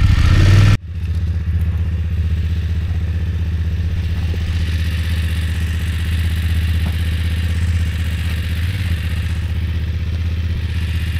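BMW F850GS motorcycle's parallel-twin engine running steadily at low revs while the bike is ridden slowly. The sound changes abruptly less than a second in.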